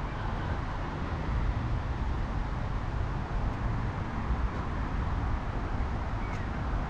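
Steady outdoor background of distant road traffic, a low even rumble with no distinct events.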